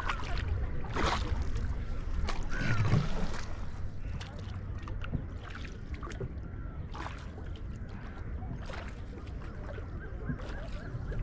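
Paddles dipping and splashing in lake water from a rowboat, with scattered short strokes over a steady low rumble and faint voices now and then.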